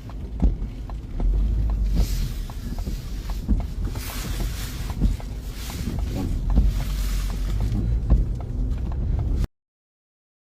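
Low rumble of wind and vehicle noise, with gusts of rushing wind and scattered small knocks and clicks. It cuts off abruptly about nine and a half seconds in.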